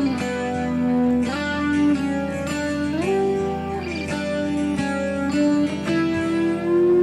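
Background music: a plucked guitar playing a melody, with several notes sliding up or down into the next.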